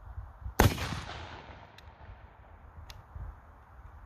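A single black-powder shot from a .577 Snider short rifle, about half a second in, with a long echoing tail, fired to fireform a cartridge case with a .58 Minié bullet. A couple of faint clicks follow.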